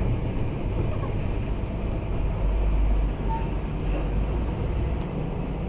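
Mercedes-Benz OF1214 bus's six-cylinder diesel engine running, heard from inside the bus as a steady low rumble that swells briefly about halfway through.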